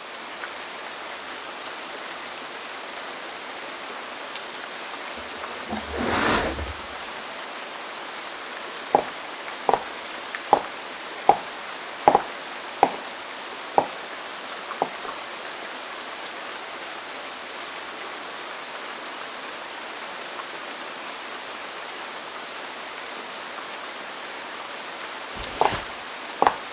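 A steady, even hiss, with a low swell about six seconds in, then a run of about eight sharp clicks between roughly nine and fifteen seconds in, and two more clicks near the end.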